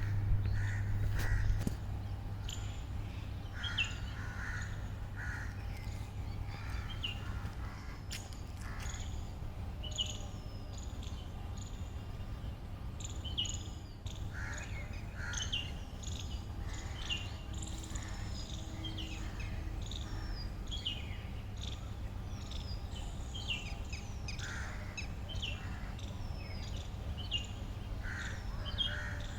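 Several birds chirping and calling outdoors: many short high chirps and downward-sliding whistles, mixed with lower calls that come in pairs. A low hum underneath is louder in the first second or so.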